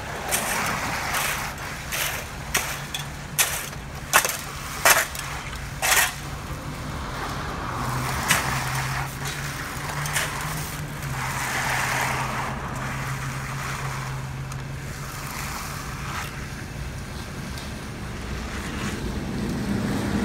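Wet concrete being worked with shovels and hand tools: a series of sharp knocks and scrapes in the first few seconds, then longer scraping and sliding sounds, over the steady low hum of a concrete mixer truck's engine running.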